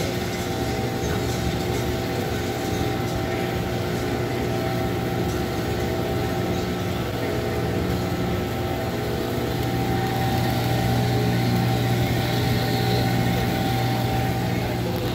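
Stationary drum coffee roaster running, with the stirring arms of its cooling tray turning a batch of just-discharged, medium-roasted beans: a steady mechanical hum that swells slightly after the middle.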